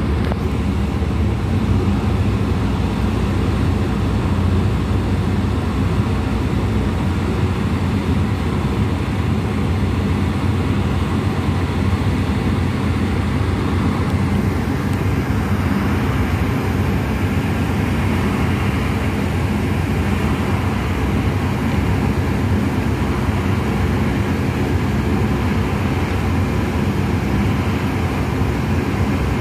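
Steady low drone of a boat's engine running, an even hum under a rushing hiss that grows a little louder about halfway through.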